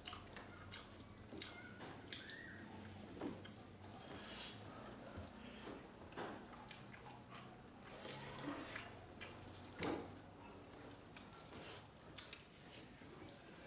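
Mukbang eating by hand: wet squishing as fingers mix dal and rice, with lip smacks and chewing. Scattered short clicks run throughout, the loudest about ten seconds in.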